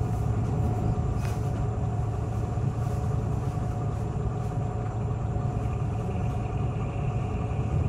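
City bus engine running steadily: a low drone with a faint steady whine above it, and a light click about a second in.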